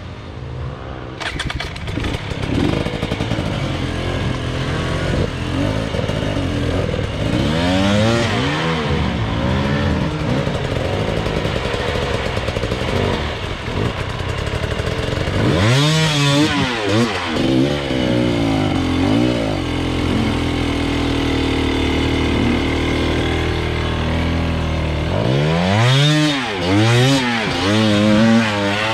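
Enduro dirt bike engines revving hard, the pitch swinging quickly up and down with repeated throttle blips. There are louder bursts about a quarter of the way in, around halfway and near the end, as riders work the bikes up a steep hill climb.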